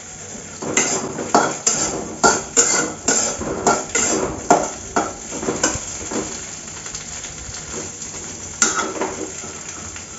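A metal spatula knocking and scraping against an aluminium kadai while stirring okra frying in oil, about two strikes a second for the first half. After that it is mostly a soft sizzle, with one more knock near the end.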